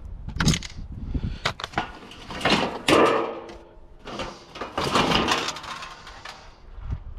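Sheet-metal and plastic parts of a water cooler being pulled apart and handled: a series of knocks, then two longer stretches of scraping and rattling.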